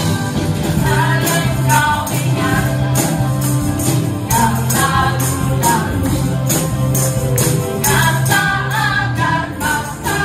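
A gospel song, with voices singing over a band, while tambourines are struck in a steady rhythm, two to three times a second.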